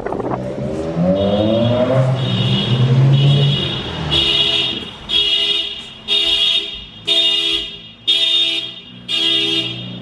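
A Mazda Miata's engine revs up briefly at the start, then a parked car's alarm goes off, settling into a repeating blast about once a second, set off by the Miata's loud exhaust.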